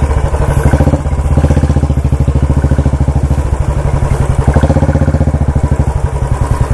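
Royal Enfield Bullet's single-cylinder engine running at low revs, with a rapid, even beat of firing pulses.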